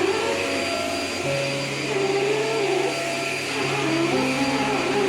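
Polti Forzaspira electric stick vacuum cleaner running steadily, its motor making a continuous whine and rush of suction.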